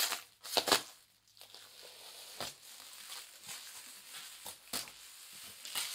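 Plastic packaging wrap being crinkled and torn open by hand, with a few loud sharp rustles in the first second and quieter crackling after.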